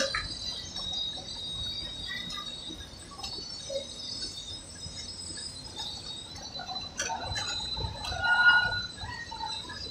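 Ride noise from a moving train car: a steady high-pitched whine with a low rumble beneath, a sharp click about seven seconds in, and a short squeal about a second later.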